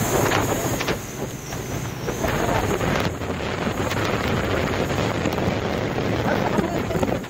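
Wind rushing over the microphone of a phone on a moving motorcycle, with motorcycle and traffic noise beneath on a rain-soaked, flooded road.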